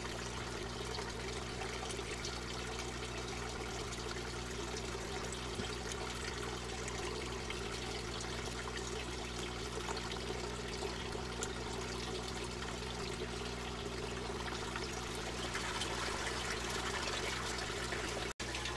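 Steady trickle of water running through a greenhouse aquaponics system, over a low steady hum. The sound drops out for a moment near the end.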